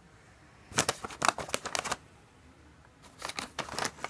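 Brown paper bag crinkling and rustling as a cat claws and bites at it: two bursts of quick crackles, one about a second in and another about three seconds in.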